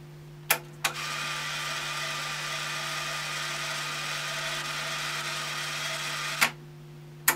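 Cassette deck transport keys clicking, then the tape winding at speed with a steady whir for about five seconds, stopped by another key click about six seconds in; two more key clicks near the end. A low steady hum runs underneath.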